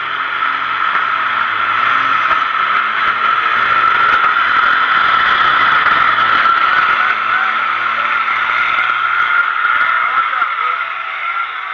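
Two diesel semi-trucks drag racing side by side at full throttle, their engines growing louder as they approach, loudest as they pass close by about midway, then easing as they pull away.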